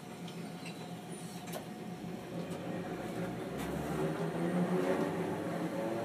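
Chikuho Electric Railroad 3000-series tram pulling away and accelerating: a low hum, joined about two and a half seconds in by a whine that rises steadily in pitch and grows louder as the tram gathers speed.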